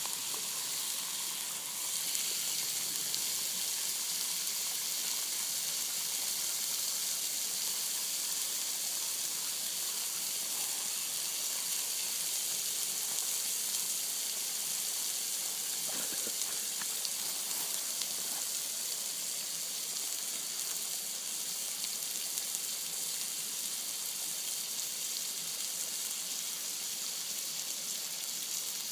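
Meat frying in plenty of hot oil, a steady sizzle with a few faint spatters.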